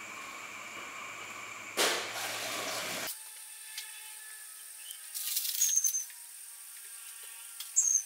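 Water boiling in a small saucepan over a gas burner, with an egg cooking in it. A steady hiss, with two louder rushing surges of boiling about two and five seconds in.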